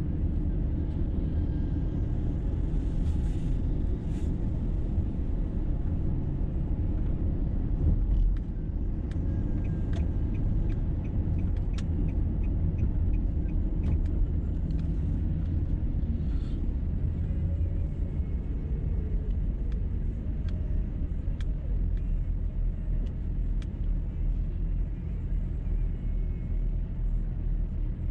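A car driving on a city road, with a steady low rumble of engine and tyre noise and a few faint clicks now and then.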